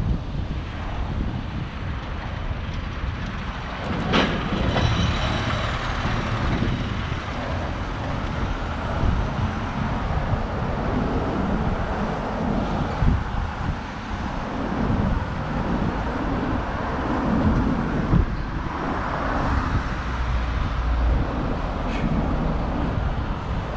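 City street traffic: road vehicles driving past in a steady rumble of engines and tyres, with a sharp click about four seconds in and another near the end.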